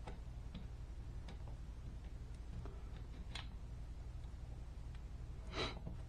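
Faint scattered clicks of small metal parts being handled at a GFCI receptacle in its wall box, with one louder, brief scrape about five and a half seconds in, over a steady low hum.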